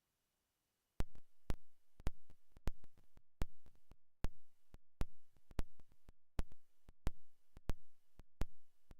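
Electronic music beat: sharp kick-like strokes, often in close pairs like a heartbeat, about one every 0.6 s, starting about a second in.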